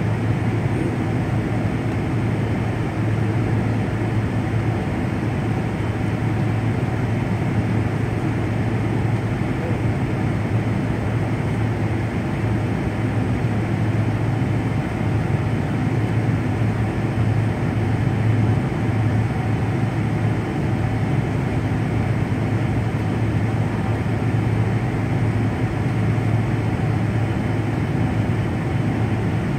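Jet airliner cabin noise from a window seat over the wing: the engines idling with a steady low hum and hiss while the aircraft waits on the ground.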